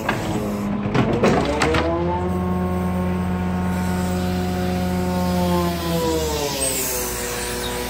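Grapple truck's engine and hydraulic crane working. The engine speeds up about two seconds in as the grapple lifts and swings a load of lockers, holds steady, then drops back near the end. A few knocks and crunches about a second in as the grapple squeezes the lockers.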